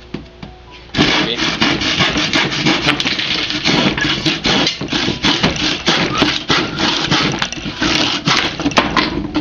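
A saw cutting through a pallet board, starting about a second in and stopping just before the end.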